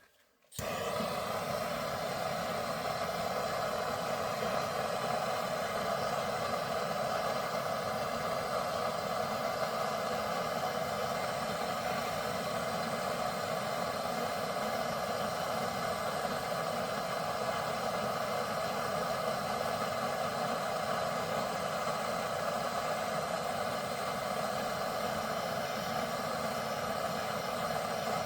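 Handheld gas torch flame burning steadily, heating the bare metal of a worn sway bar end link so that it will come off. The flame starts suddenly about half a second in and holds at an even level.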